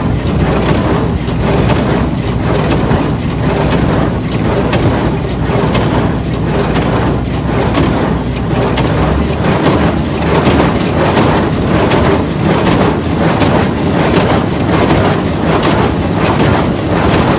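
Tractor and hay baler running steadily, with a regular beat about once a second over the engine hum.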